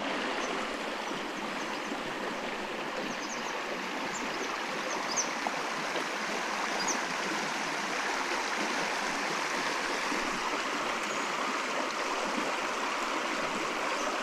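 Small creek running steadily, a constant even rush of flowing water.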